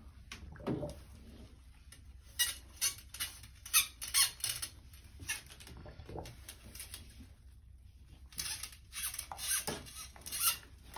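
A snake cleaning brush pushed and pulled through a brass trombone slide tube under soapy water. It makes irregular squeaks and scrapes in quick clusters, loudest around a third of the way in and again near the end.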